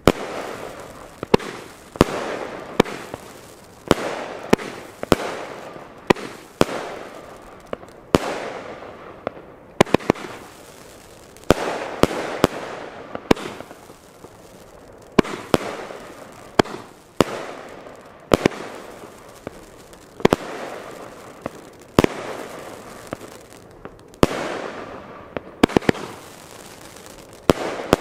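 Nico Golden Eye firework battery firing shot after shot: sharp bangs about once a second, each trailing off, as star shells burst overhead.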